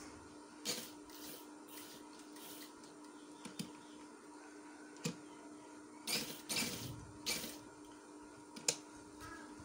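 Cloth rustling in short, irregular bursts as fabric is turned and smoothed on a sewing machine bed, with a couple of sharp clicks, over a steady low hum.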